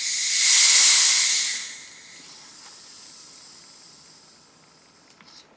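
Gas hissing out of a plastic screw-cap bottle of homebrewed imperial red ale as the cap is loosened: a sudden loud hiss that peaks about a second in and dies down within two seconds, then a quieter hiss that fizzes on as the beer foams up. The ale is over-carbonated, which the brewer guesses is from too much sugar.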